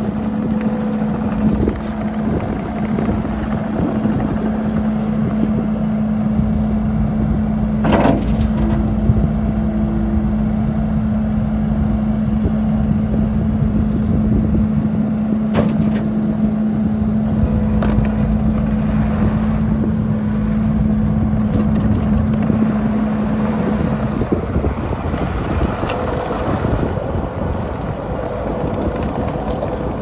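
Kubota SVL75-2 compact track loader's diesel engine running with a steady low rumble and hum, with wind on the microphone. There is a single sharp knock about eight seconds in, and the hum's steady tone drops away near the end.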